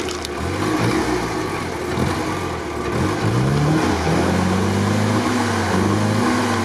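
Willys jeep engine running and being revved, its pitch rising about three seconds in and wavering up and down after. The crew judge its ignition timing a little late.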